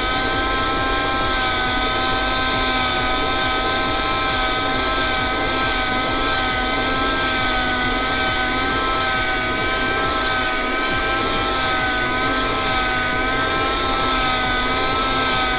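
Multilaser AU607 12 V 60 W handheld car vacuum running steadily while cleaning a car seat: an even motor whine whose pitch wavers slightly.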